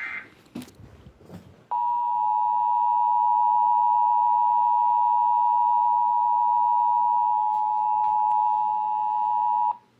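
Weather radio emergency alert tone: one steady high tone that sounds for about eight seconds and then cuts off, after a few faint crackles. It is the alarm that opens a new broadcast of a severe thunderstorm warning.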